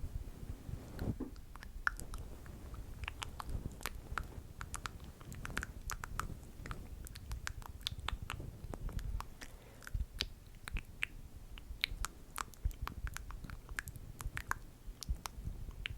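ASMR mouth sounds: many sharp, irregular clicks and smacks, several a second, close to the microphone.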